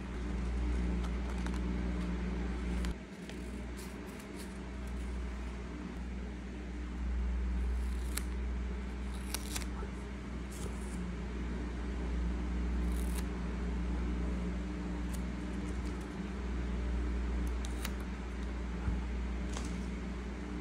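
Scissors snipping through paper in the first few seconds, then clear sticky tape and paper being handled and pressed down, with scattered crinkles and clicks over a steady low hum.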